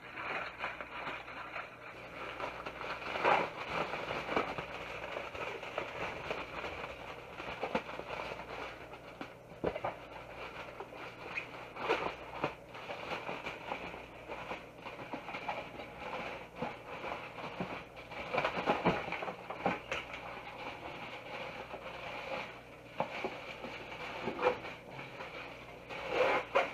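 Aluminium foil being crinkled and handled: a steady crackling rustle with louder bursts of crinkling every several seconds.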